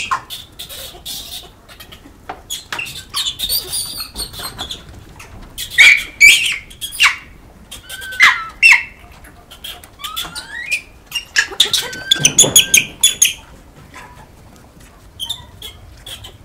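A huddled troop of Japanese macaques giving short, high squeaks and chirping calls, some sliding up or down in pitch, among scattered clicks; the loudest run of calls comes about twelve seconds in.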